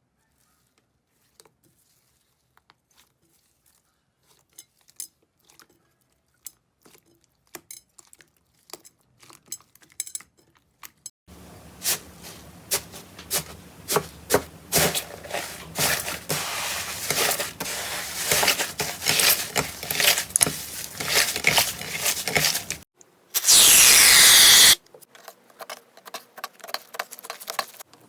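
Slime being pressed and poked, making many small crackles and pops. These are sparse and faint at first, then dense and louder over a steady hiss from about eleven seconds in. Near the end a loud rushing noise lasts about a second.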